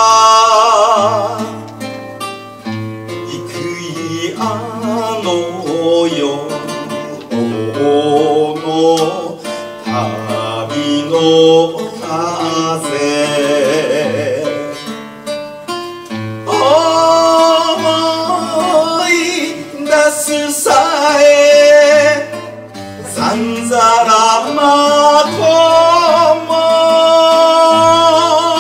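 A man singing an enka ballad with strong vibrato, accompanied by a plucked classical guitar.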